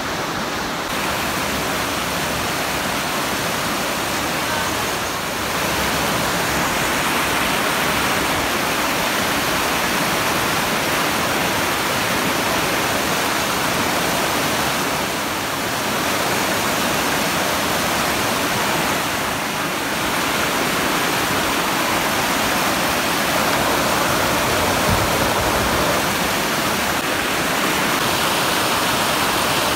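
Steady rushing noise with no distinct events, dipping briefly a few times.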